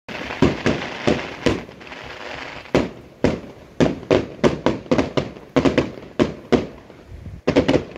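Aerial fireworks display: about twenty sharp bangs from bursting shells at irregular intervals, some in quick clusters, with crackling hiss between them, most in the first two seconds.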